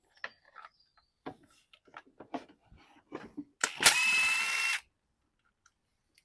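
A handful of light tool clicks and knocks, then a power drill runs for about a second with a steady whine, about four seconds in.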